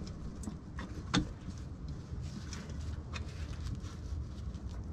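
Faint metal clicks and one sharper knock about a second in, from the NP231 transfer case's rear housing being shifted by hand on its play against the case while trying to seat the oil pump on its oil line, over a low steady rumble.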